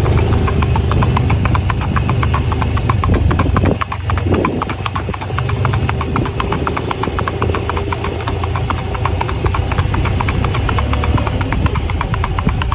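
Rapid, even four-beat hoofbeats of a single-footing stallion on an asphalt road, over a steady low engine hum.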